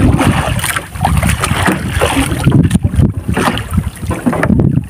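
Wind rumbling on the microphone over water sloshing and splashing around a small outrigger fishing boat.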